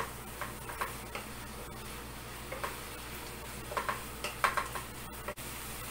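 Ground pork with added soy sauce being stirred in a frying pan: irregular scrapes and taps of the spatula against the pan over a low sizzle.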